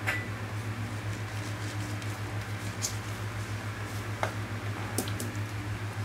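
Steady low electrical hum of a 12 V DC to 100 V AC step-up transformer running, with a few light clicks.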